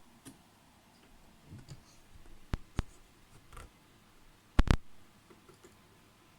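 A few sharp, separate clicks, the loudest a quick double click about two-thirds of the way through, with soft rustling handling sounds between them.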